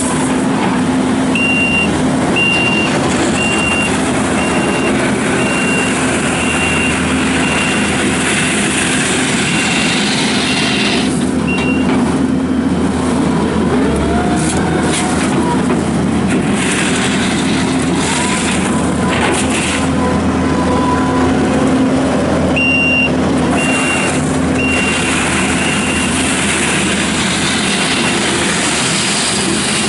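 Kubota SVL75-2 tracked skid steer's diesel engine running steadily under work, with its reversing alarm beeping about once a second in two spells, while the machine backs up.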